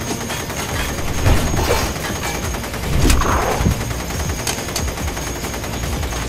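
Rapid automatic fire: a dense, unbroken stream of shots, with louder bursts about a second in and around three seconds in.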